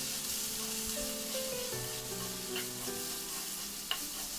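Chicken and ground spice paste sizzling in hot mustard oil in a karai, with a few light clicks as it is stirred. Soft background music of held notes plays over it.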